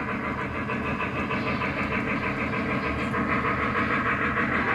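A Lionel O-gauge model freight train, drawn by a K4 4-6-2 steam locomotive, running steadily along its track: a continuous rumble with a fast, even rhythmic clatter.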